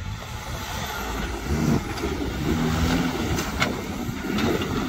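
Off-road 4x4 competition vehicle's engine running under load, getting louder about a second and a half in, with a few sharp knocks in the second half.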